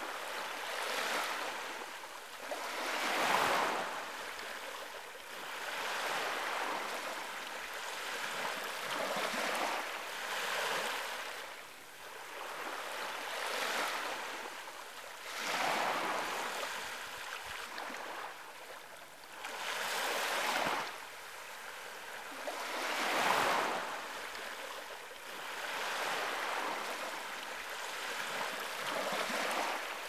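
Small waves breaking and washing up the shore one after another, each a rush of surf that swells and fades over a few seconds. The loudest breaks come about three seconds in and again about twenty-three seconds in.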